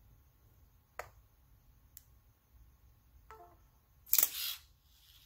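Light mechanical clicks and a short beep from a LEGO Mindstorms EV3 robot arm and its brick as the motor program is run again. Two sharp clicks come about a second apart, then a short beep, then a brief gritty burst about four seconds in, which is the loudest sound.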